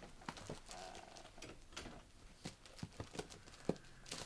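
Comic books being flipped through by hand in a shop bin: a run of light, irregular clicks and rustles.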